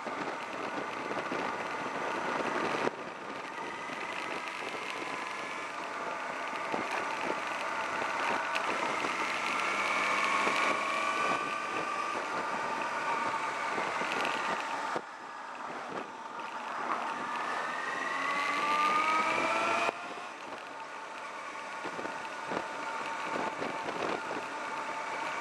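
Sport motorcycle engine running on the move, its pitch rising and falling with the throttle through the bends, over a haze of wind noise. The engine note cuts back abruptly three times and climbs steadily in one long pull near the end.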